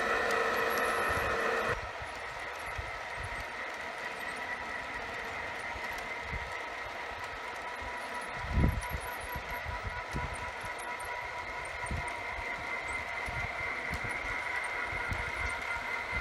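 G-scale model train of CSX Dash 9 diesel locomotives and coal hoppers running on its track, with a steady whine from motors and wheels. It is louder for the first two seconds. Wind gusts buffet the microphone with low rumbles throughout, and there is one louder low thump about halfway through.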